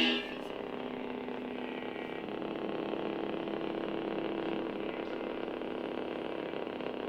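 Lightsaber hum from Kyberphonic's Sol sound font, played from an AZ Sabers Stony Magnum Vendari: the ignition sound dies away in the first moment, then the blade hums steadily with a few held low tones.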